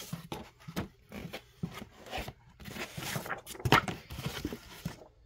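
Comic books being handled and shuffled in a cardboard box: paper and cardboard rustling and scraping, with scattered soft knocks, the loudest a little under four seconds in.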